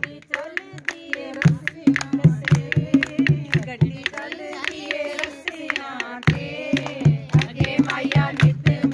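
A group of women singing Punjabi tappe together to a dholak beat and hand clapping. The drum drops out for about a second just after the start and again for about two seconds in the middle, leaving the voices and claps.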